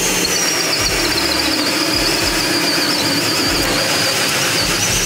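DeWalt cordless drill in its high-torque mode driving a 3-inch hole saw through a wooden board. It runs under load with a steady high motor whine that wavers slightly in pitch over the rasp of the saw teeth cutting the wood.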